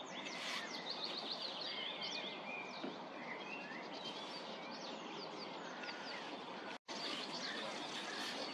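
Several small songbirds singing together, many short chirps and quick falling whistles overlapping, over a steady background hiss. The sound cuts out for an instant about seven seconds in.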